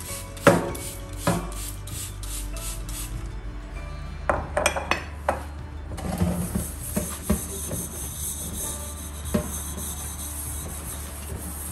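Steel wool and a sponge scrubbing a stainless steel pot in a stainless steel sink, a steady rasping rub broken by sharp knocks and clanks of the pot against the sink, the loudest about half a second in and a cluster around four to five seconds in.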